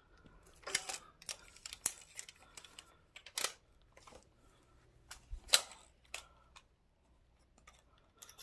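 Faint scattered handling noise: light clicks and rustles, with a few sharper clicks about one, two, three and a half and five and a half seconds in.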